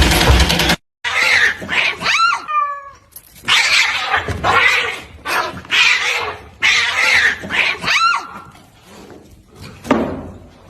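A cat hissing and yowling in repeated bursts, with short wavering cries among the hisses. A loud rushing noise from the clip before cuts off just under a second in.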